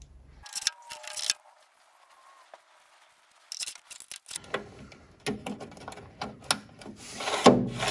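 Steel drawer slides inside a metal tool chest being handled: light metal clicks and rattles, a few at the start, then a busier run of clicks and knocks from about four seconds in, louder near the end.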